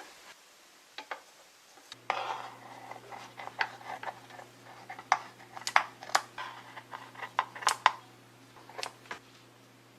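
Kitchen clatter: a run of sharp clinks and taps of utensils against dishes. A low steady hum of an appliance starts about two seconds in and carries on underneath.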